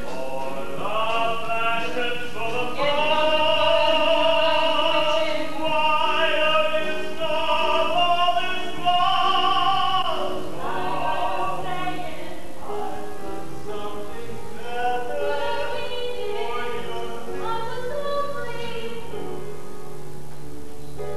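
A man and a woman singing a show-tune duet from a stage musical, with accompaniment. The voices hold long notes, fullest in the middle, then carry on more softly.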